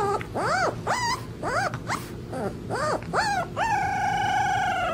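A young puppy howling: a run of short rising-and-falling yelps, then, from about three and a half seconds in, one long held howl.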